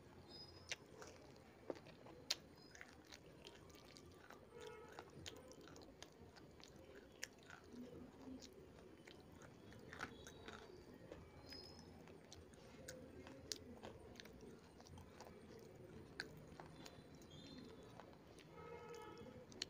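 A person chewing baked edible clay close to the mouth: a soft, steady grinding with sharp crunches now and then, the loudest about two seconds in.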